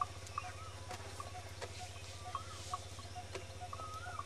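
Faint short chirping animal calls, several in a row with small rises and falls in pitch, over a steady low hum.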